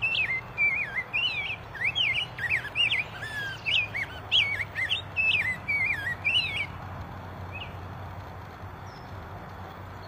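Male rose-breasted grosbeak singing a fast, warbled run of rising and falling whistled phrases that stops about two-thirds of the way through, leaving faint steady background noise.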